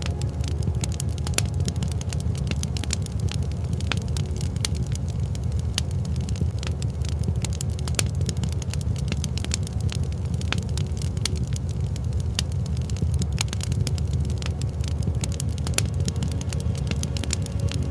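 Wood fire crackling steadily, with many small sharp cracks and pops over a constant low rumble.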